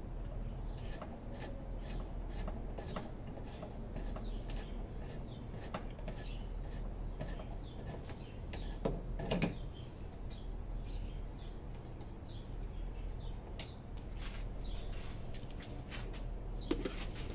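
Hand rivet nut tool clicking and creaking as its handles are worked to set threaded rivet nuts in a car's rear hatch, with two louder clunks close together about nine seconds in.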